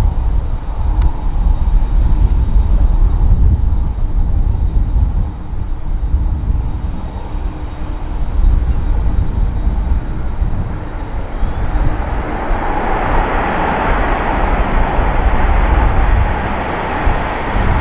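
Aer Lingus Airbus A330's twin jet engines spooling up for takeoff: a low rumble that swells from about twelve seconds in into a loud, rushing jet roar.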